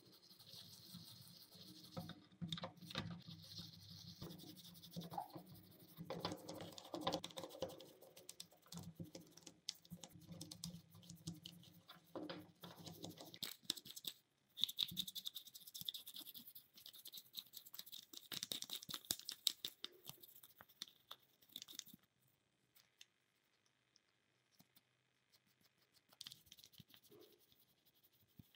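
A toothbrush scrubbing the greasy, wet metal gear housing of an old Black & Decker drill: faint, quick scratching strokes that stop for a few seconds about three quarters of the way through, then start again.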